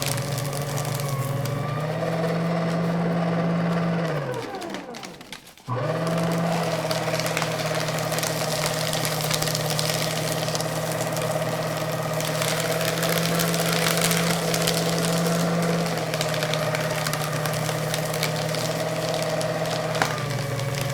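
Electric paper shredder running with paper being fed through its cutters: a steady motor hum under a dense crackling rustle of cut paper. About four seconds in the motor winds down, its hum falling in pitch and fading, then starts again abruptly about a second and a half later and keeps shredding.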